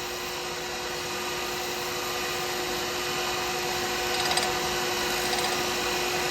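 Wood lathe running with a steady hum while a turning tool cuts a spinning cast pen blank, taking a light finishing cut; slightly louder about four seconds in.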